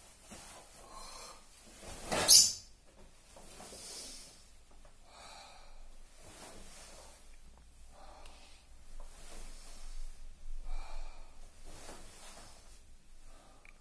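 A karateka's forceful breathing during a kata: short, audible breaths and exhales through the nose and mouth, repeating about every second, with one louder sharp burst of noise about two seconds in.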